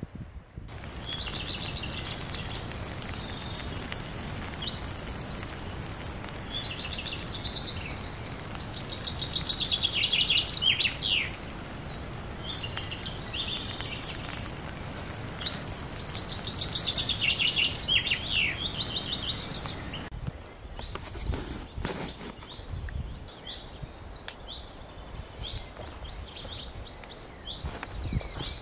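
Several songbirds singing in woodland, a busy mix of rapid trills and short whistles, over a low rustle of wind. About twenty seconds in the song drops away suddenly, and a few knocks and rustles follow while birds sing faintly.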